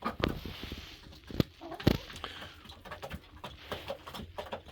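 Poultry in a coop: scattered small pecking and scratching clicks with soft, low bird calls, and two sharper knocks near the middle.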